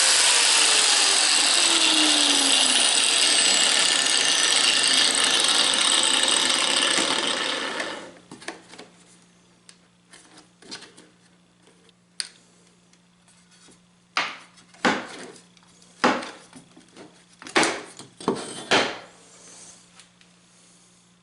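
Power saw cutting through aluminium: a loud, harsh cutting noise for about eight seconds that stops abruptly. It is followed by scattered knocks and clatter of the metal pieces being handled.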